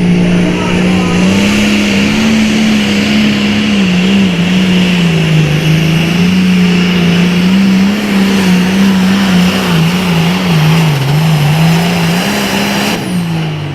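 Super Farm pulling tractor's diesel engine at high revs under load during a pull, its pitch wavering up and down. Near the end the revs fall away.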